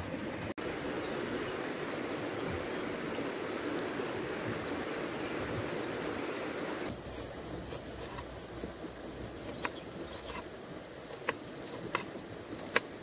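River water rushing in a steady hiss. About seven seconds in it drops abruptly to quieter flowing water, with a handful of sharp, irregular clicks.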